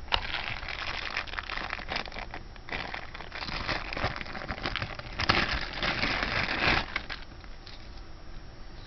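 Small plastic bags crinkling and rustling as bagged jewelry is handled, with small clicks throughout; the handling is loudest from about five to seven seconds in.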